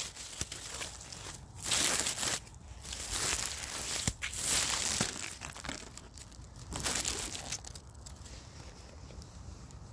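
Rustling handling noise on a phone's microphone: fingers and a glove rubbing and shifting on the phone in irregular scratchy bursts, easing off near the end.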